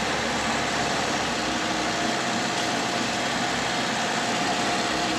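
Sherp all-terrain vehicle's diesel engine running steadily as the machine climbs a deep-snow slope in first gear without the differential locks.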